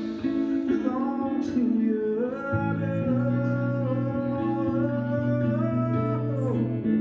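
A man singing with guitar, holding one long note for about four seconds in the middle.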